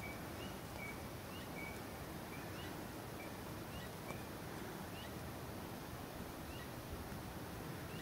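Outdoor ambience: a steady low rush with a run of short high chirps, some of them rising, about two a second. A single sharp click about four seconds in.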